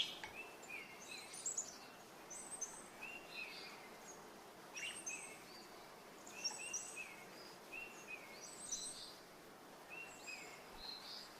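Small birds chirping in short, repeated phrases, fairly faint, with a sharp click at the start and another about five seconds in.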